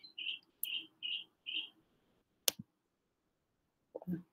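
Computer mouse clicks: one sharp click about two and a half seconds in and a softer one near the end. Before them, a run of faint, evenly spaced pips fades out over the first second and a half.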